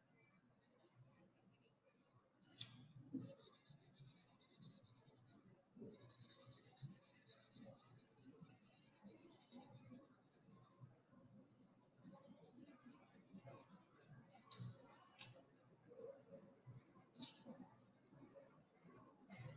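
Faint scratchy strokes of a felt-tip marker rubbed rapidly back and forth on paper, colouring in a large area, coming in runs of a few seconds with short pauses and a few sharper ticks.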